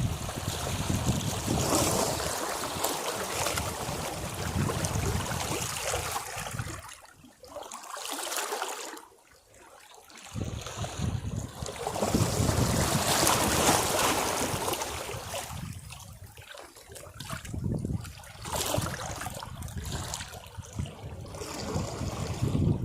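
Sea waves breaking and washing over rocks: uneven surges of rushing water, the loudest about twelve to fifteen seconds in, with a deep lull about eight to ten seconds in.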